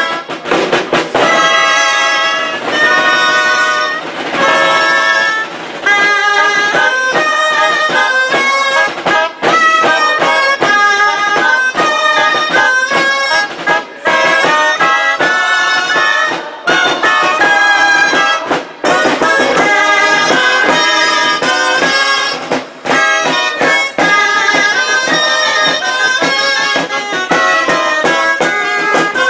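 Several gralles, the Catalan double-reed shawms, playing a folk tune together in a loud, nasal unison, with small drums keeping a steady beat underneath.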